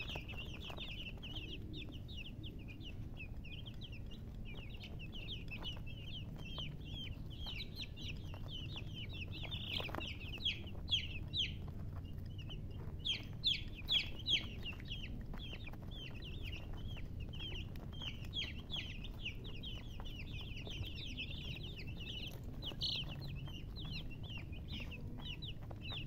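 A flock of baby chicks peeping: a constant stream of short, high chirps from many birds at once, with a few louder peeps near the middle.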